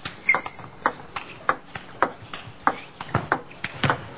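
Table tennis rally: the ball clicking sharply off the players' bats and the table in quick alternation, about four hits a second.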